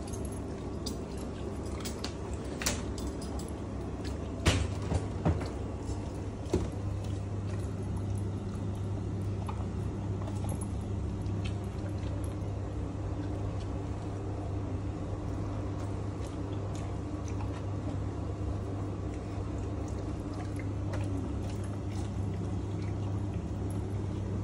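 German shepherd eating chunks of raw meat from a glass bowl, with a few sharp clicks and clinks in the first seven seconds. A steady low hum runs underneath throughout.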